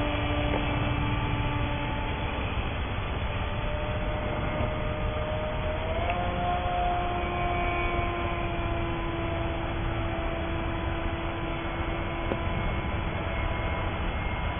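Turnigy 1650KV brushless electric motor spinning a 7x5 propeller on a foam RC plane in flight: a steady whining drone whose pitch rises a step about six seconds in. A low rumble of wind on the microphone runs underneath.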